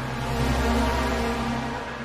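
Cinematic horror sound effect: a deep rumble under a dense wash of noise and a few held tones, beginning to fade near the end.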